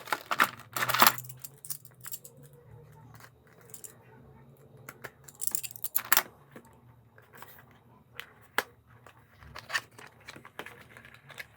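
Unboxing a cardboard headphone box: scattered clicks, scrapes and rustles of the packaging being opened and handled, loudest about a second in and again around six seconds, over a faint steady low hum.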